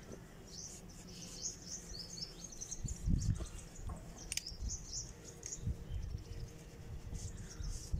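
Small birds chirping, many short high calls through the first half. Under them come dull thumps and rubbing as a cloth is worked over a revolver in the hands, the loudest about three seconds in, and one sharp click a little past four seconds.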